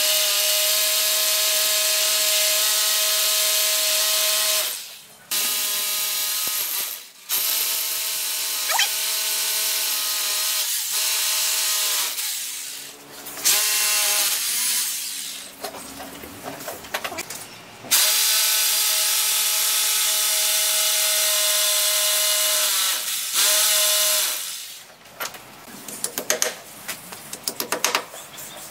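Corded electric drill running in several long bursts of a few seconds each with short stops between, drilling into the wooden frame of an arched door. Near the end a quick string of sharp clicks and taps.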